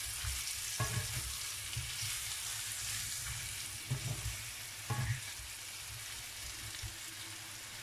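Boiled potatoes frying in hot oil in a wok, a steady sizzle, with a wooden spatula knocking and scraping against the pan a few times as they are stirred.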